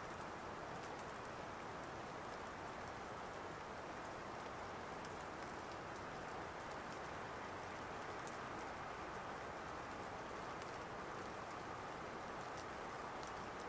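Light drizzling rain falling steadily with no wind: an even soft hiss with scattered faint ticks of single drops.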